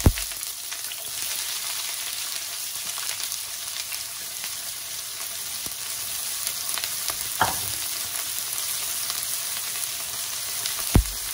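Sliced red onions freshly added to hot oil sizzling steadily in a large saucepan, the start of shallow frying. A short knock about seven seconds in and another near the end.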